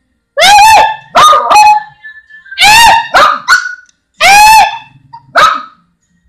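A small dog barking: about eight high-pitched barks in uneven groups of one to three, with short silent gaps between.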